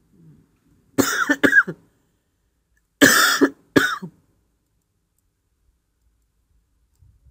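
A person coughing in two bouts about two seconds apart, each bout of two or three coughs.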